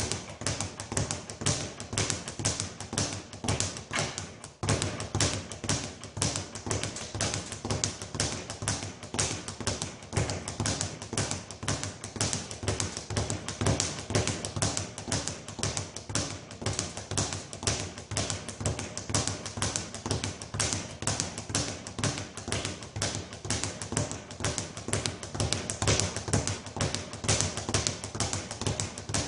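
Speed bag being punched continuously, rebounding off its round platform in a fast, steady rattle of strikes, with a brief break about four and a half seconds in.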